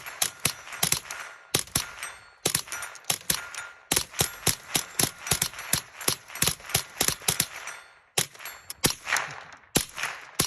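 Rapid-fire .22LR rifle shots, about four to five a second in strings with brief pauses, the bullets hitting a small steel plate that clangs and rings faintly.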